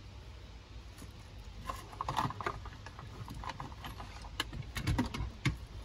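Scattered light clicks and taps of battery cables and their metal ring terminals being handled on top of the batteries, with a cluster about two seconds in and several sharper ticks near the end, over a low steady hum.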